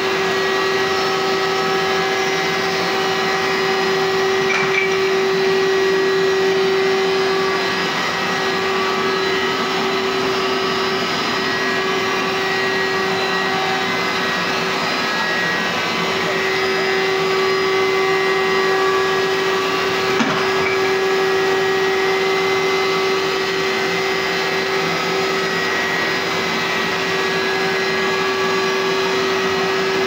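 A 9-amp Hoover SteamVac Widepath upright carpet cleaner running steadily as it is pushed over a rug. Its suction motor makes a constant whine with a steady tone.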